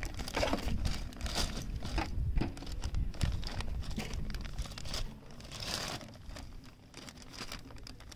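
Irregular crinkling and rustling handling noise over a low rumble of wind on the microphone, quieter from about five seconds in.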